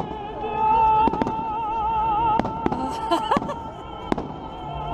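A woman singing one long, operatic note with a wide vibrato. Several sharp fireworks bangs go off, about four in all.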